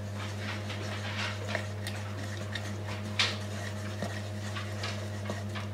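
A spoon stirring batter in a stainless steel mixing bowl: irregular small scrapes and taps against the metal, with one sharper knock about three seconds in. A steady low hum runs underneath.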